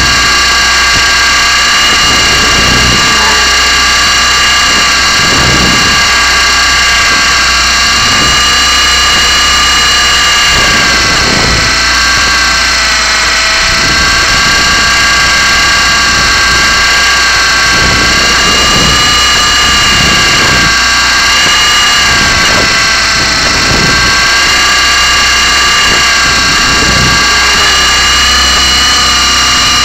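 Blade 120SR micro RC helicopter's electric motor and rotor whining steadily at close range, a high whine of several tones that drift slightly in pitch, over an uneven low rumble.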